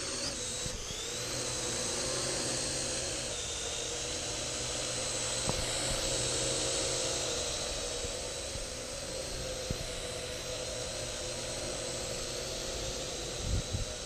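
Parrot AR.Drone 2.0 quadcopter's four electric motors and geared propellers spinning up at the start, then a steady high-pitched whine as it flies. It runs on freshly fitted propellers, gears, shafts and bearings.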